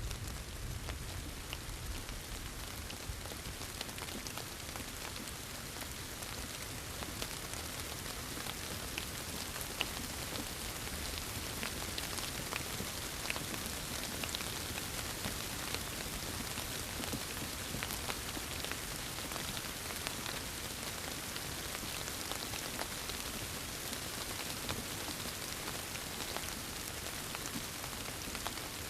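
Steady rain falling on a hard surface, with many separate drop hits ticking through the hiss; the last of a thunder rumble dies away in the first second.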